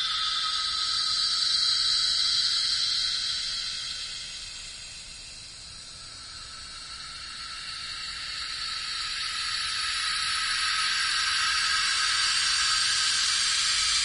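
A steady, high-pitched hiss. It fades down a few seconds in and swells back up later.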